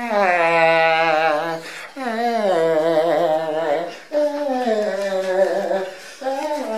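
A man's voice singing long, drawn-out wordless notes with vibrato. There are four phrases, each sliding down a little at its start and then held.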